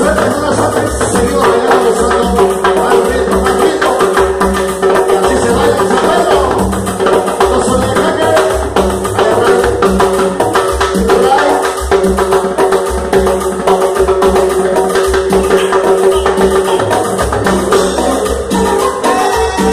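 Live Latin dance band playing loudly, with bongos, timbales and cymbal struck by a percussionist over a steady held keyboard-like tone.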